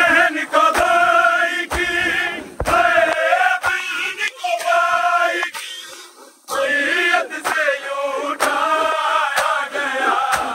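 A large crowd of men chanting a nauha together, with the sharp slaps of open-handed chest-beating (matam) landing about once a second. The chanting breaks off briefly around six seconds in.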